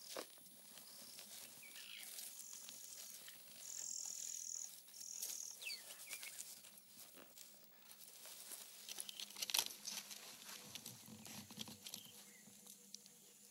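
Faint bush ambience: insects trilling in a few short high bursts, with scattered light scratches and rustles from a honey badger's claws on rock and dry leaves, the loudest cluster about nine and a half seconds in.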